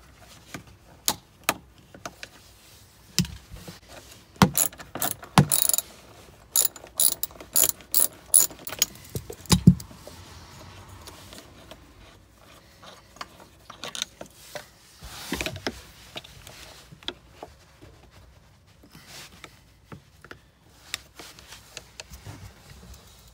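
Hand ratchet with a T45 Torx bit clicking in quick runs of strokes as bolts are backed out, with a heavier metal knock about ten seconds in.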